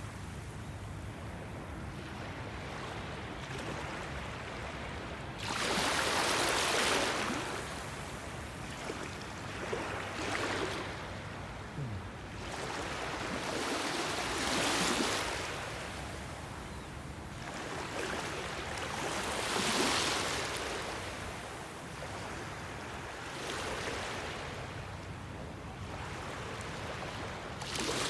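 Sea water washing and splashing in swells that rise and fall every three to five seconds.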